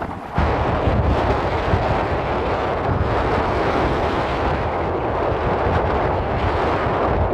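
Sea and wind rushing, with heavy wind buffeting on the microphone that gives a deep, steady rumble; it comes in louder about half a second in.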